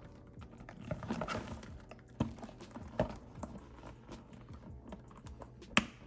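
Handling of a leather tote bag: soft rustling with scattered light clicks and taps, and one sharp click a little before the end.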